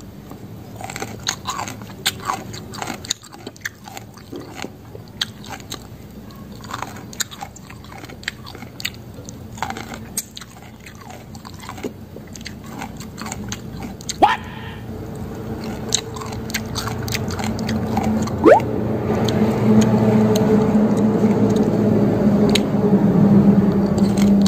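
Close-up chewing and crunching of raw water spinach and beans from a pounded salad, with many short crisp crunches. A vehicle engine's steady hum builds up over the second half and becomes the loudest sound near the end.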